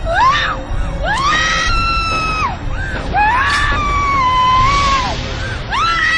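A young woman screaming in pain as her fingernail is torn off: long drawn-out screams, each rising, held and falling, the third starting near the end, over dark background music.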